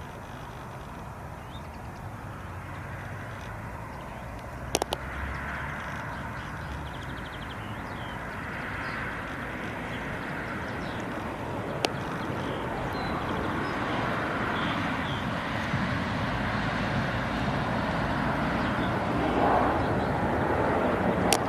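Outdoor field recording of a steady rushing noise that slowly grows louder, with a few sharp clicks about five, twelve and twenty-one seconds in.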